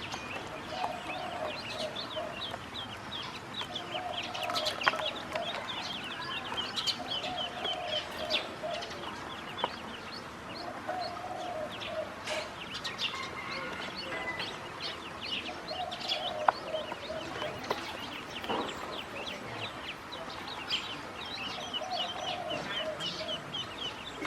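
Ducklings peeping nonstop in short high calls, many a second. A lower call comes and goes every two seconds or so.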